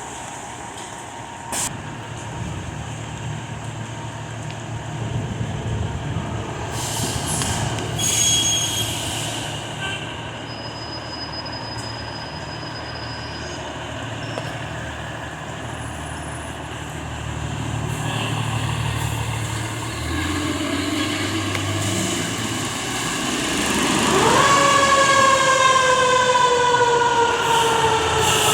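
Diesel fire trucks running, with loud hissing about a third of the way in. Near the end a siren winds up quickly and then slowly falls in pitch.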